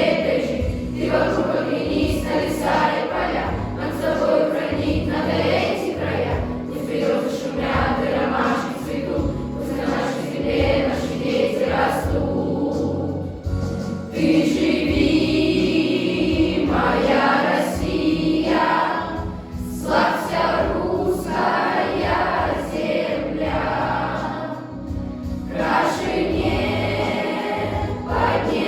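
A class choir of schoolchildren sings a Russian patriotic song together over an instrumental accompaniment with a steady beat.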